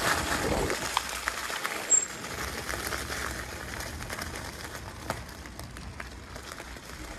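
The 14-inch tyres of a small folding e-bike rolling fast over loose gravel: a steady crunching hiss with many small stone clicks, loudest in the first second and then settling a little lower.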